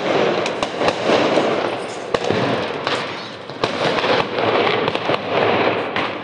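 Firecrackers going off all around: a continuous crackling din with many sharp cracks at irregular intervals.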